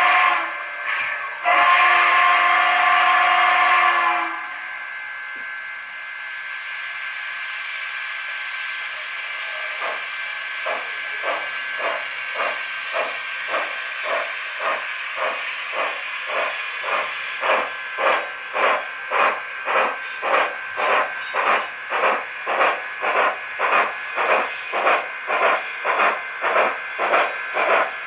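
Digital sound of an HO-scale Southern Pacific Cab Forward steam locomotive model played through its LokSound V5 decoder's speaker: a chime whistle sounds twice, a short blast then a longer one, followed by a steady steam hiss. About ten seconds in, exhaust chuffs begin at roughly two a second and grow louder as the locomotive gets under way.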